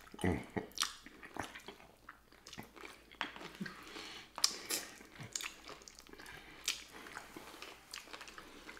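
Chewing and biting of sticky pig feet: irregular short clicks and bites scattered throughout.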